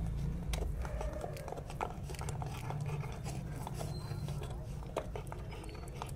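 Labrador retriever gnawing on a large camel bone: irregular sharp clicks and scrapes of teeth on hard bone, over a steady low rumble.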